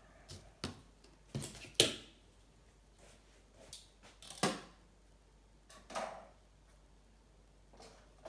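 Scattered light clicks and knocks, about nine in all, with the sharpest knock a little under two seconds in: small metal parts and hand tools being handled and set down on a workbench between drillings.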